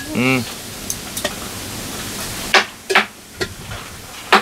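Steady hiss of heavy rain, with a short pitched voice-like sound at the start and three sharp knocks or snaps in the last couple of seconds.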